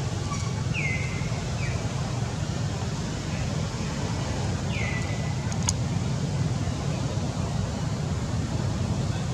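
Steady low outdoor rumble with three short high chirps falling in pitch in the first half, and a single click a little over halfway through.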